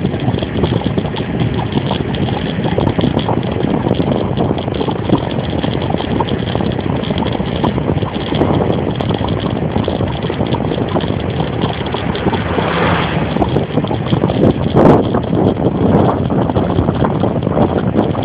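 Bicycle riding along an asphalt road: wind rushing over the microphone, with a constant fine rattling and knocking from the bike as it rolls over the surface, and a brief louder gust or jolt late on.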